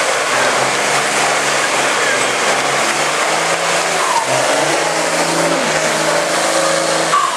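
Diesel engine of a Mercedes-Benz Unimog trial truck running steadily as the truck drives slowly past close by. A few short gliding squeals come about four and seven seconds in.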